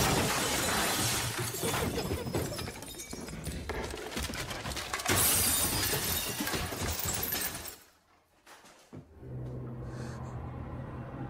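Glass-fronted picture frames crashing down and shattering, a sudden loud burst that runs on as a long tumble of breaking glass and clatter for about eight seconds. Near the end it gives way to a low, steady drone of ominous music.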